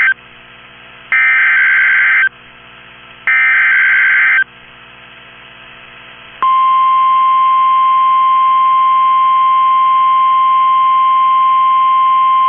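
NOAA Weather Radio SAME alert header: the tail of one burst of digital data, then two more bursts of about a second each, carrying the code for a severe thunderstorm warning. About six seconds in, the steady 1050 Hz NWR warning alarm tone starts and holds.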